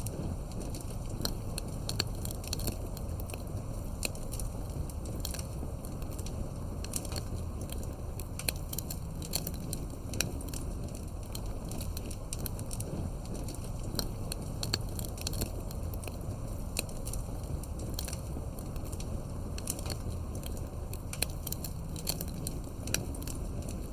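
Campfire burning, with frequent sharp crackles and pops scattered irregularly over a steady low rumble of the flames.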